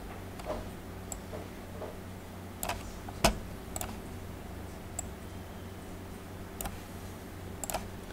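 Irregular, sharp clicks of a computer mouse and keyboard being worked, about nine in all, the loudest about three seconds in, over a low steady hum.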